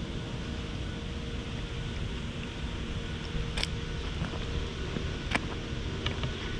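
Steady low rumble of wind buffeting the camera's microphone outdoors, with a faint steady hum underneath and two sharp clicks about three and a half and five seconds in.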